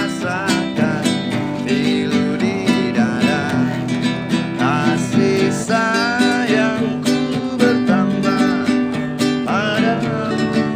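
A man singing while strumming chords on a nylon-string classical guitar, in a steady rhythm.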